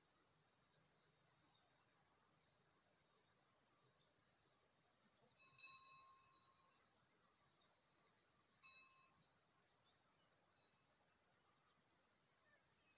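Faint, steady, high-pitched chirring of insects in the grass, with two brief faint chirps about six and nine seconds in.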